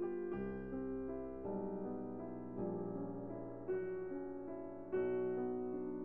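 Slow, gentle piano music: a new chord struck about once a second, each ringing and fading into the next.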